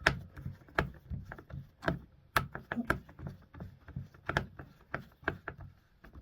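Irregular clicks and knocks of a screwdriver working and hands handling a plastic RC car body as the last screw is driven in, about two or three sharp taps a second.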